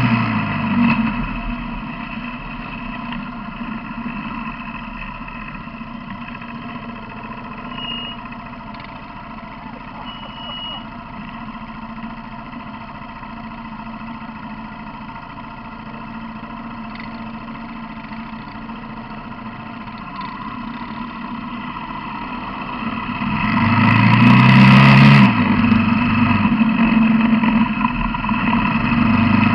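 Quad bike (ATV) engine easing off at the start and idling quietly for most of the time, then revving up with a rising pitch about 23 seconds in and running on louder as it pulls away. Two short high beeps sound around the middle of the idle.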